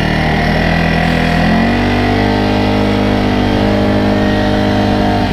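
CFMoto CForce 600 ATV's single-cylinder engine running under way, its pitch stepping up about a second and a half in and then holding steady as the quad picks up speed.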